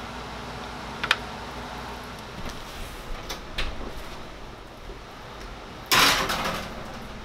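Light clicks and knocks, then about six seconds in a loud metal scrape lasting about half a second as a baking tray slides onto the oven rack.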